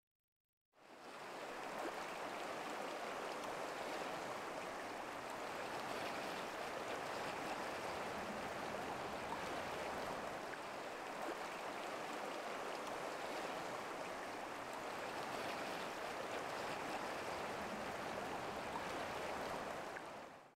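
Creek water flowing over a rippling surface: a steady, even rush of moving water that fades in about a second in.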